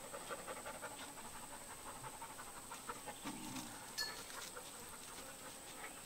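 Quiet, rapid, rhythmic panting close to the microphone, over a steady high-pitched whine.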